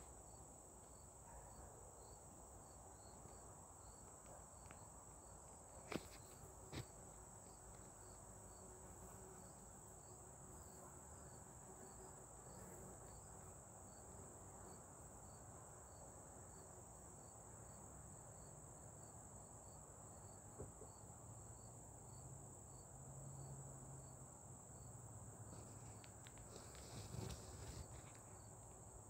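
Faint outdoor insect chorus, crickets chirping: a steady high-pitched drone with a soft chirp repeating about one and a half times a second. Two small clicks come about six seconds in.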